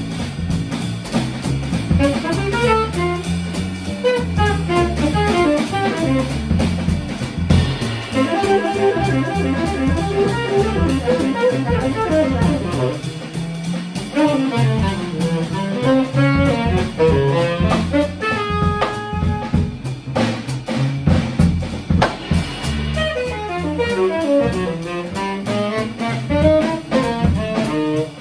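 Jazz combo playing: a tenor saxophone improvises quick, winding lines over plucked double bass and a drum kit with sticks, holding a few notes briefly about two-thirds of the way in.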